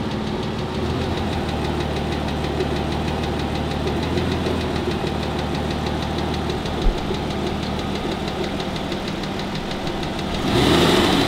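Aston Martin DB9's V12 idling hot, heard from underneath, with a fast, regular cyclic tick. The workshop puts the tick down to pistons slapping in oval-worn cylinder liners together with worn little-end bushes.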